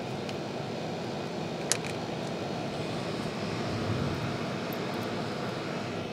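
Steady low background rumble, with a single sharp click a little under two seconds in.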